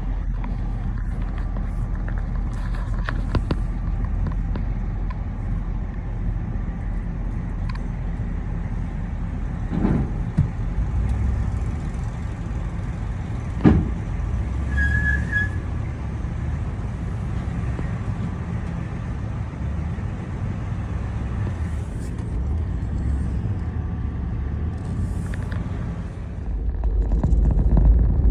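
Vehicle engine running steadily, with two sharp knocks about ten and fourteen seconds in and a brief high chirp just after the second. The engine sound grows louder near the end.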